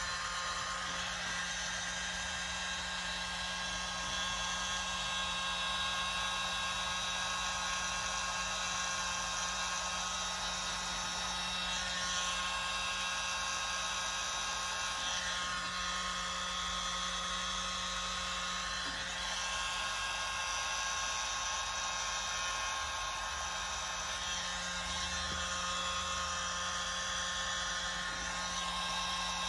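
Small handheld electric mini air blower running with a steady whine, blowing air through a long thin nozzle over wet acrylic pouring paint to push and spread the paint.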